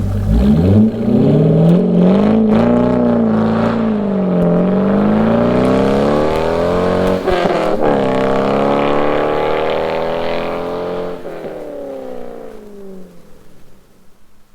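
C5 Corvette V8 through a Borla cat-back exhaust with the catalytic converters removed, revving under acceleration: the engine note climbs and drops several times, with a brief break about seven seconds in, then falls in pitch and fades out near the end.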